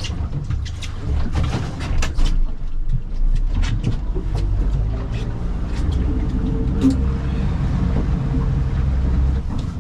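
Boat motor running steadily, heard from inside an aluminium boat cabin as a low, even hum, with scattered knocks and clatter throughout.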